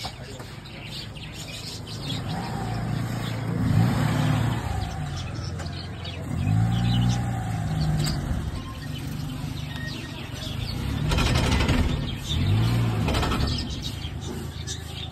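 Maruti Suzuki Omni van's small petrol engine running as the van drives up and manoeuvres, its pitch rising and falling in several swells.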